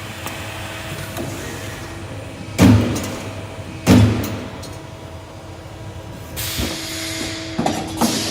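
Sheet-metal CNC punching machine system running with a steady hum, with two loud sudden strokes about a second apart and a rising hiss near the end.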